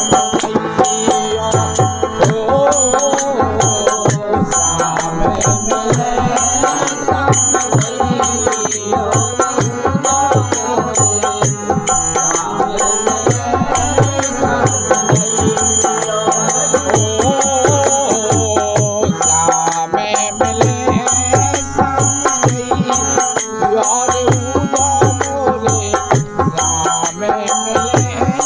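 Bundeli Kartik folk devotional song: harmonium holding steady chords, a dholak beating a steady rhythm and small hand cymbals clashing on every beat, with voices singing the refrain.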